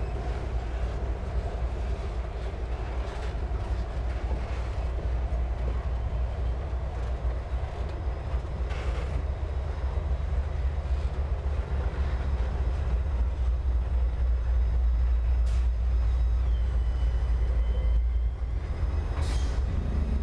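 Freight train boxcars rolling past close by: a steady low rumble of the wagons on the track, with a few scattered metallic clicks. A brief high wheel squeal comes near the end.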